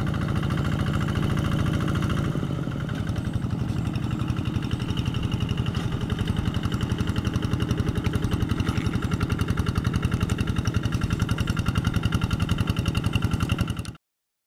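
Yanmar two-wheel walk-behind tractor's single-cylinder diesel engine running steadily with a rapid, even chugging as it works a muddy paddy. The sound changes in character a little over two seconds in and cuts off abruptly just before the end.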